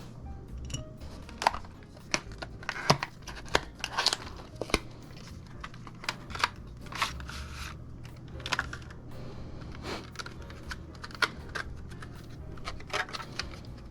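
PC parts and their packaging being handled: plastic crinkling and rustling, with irregular small clicks and taps of parts being handled, over a steady low hum.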